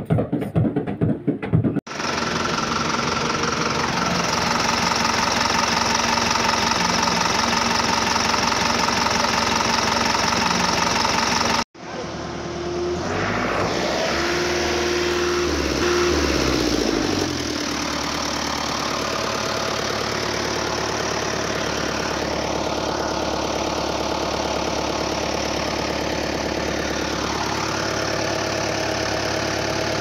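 Truck engine running steadily, starting abruptly about two seconds in after a little percussive music. It cuts off sharply near the middle and starts again, with the pitch rising and falling for a few seconds before it settles back to a steady run.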